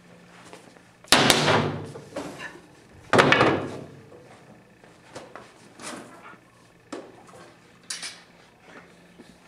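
Two loud, sharp bangs about two seconds apart, each trailing off over most of a second, followed by several fainter knocks.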